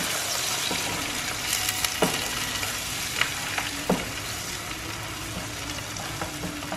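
Eggs sizzling in a nonstick frying pan over a gas flame while a plastic spatula stirs and scrapes them. A few sharp clicks of the spatula against the pan come in the middle.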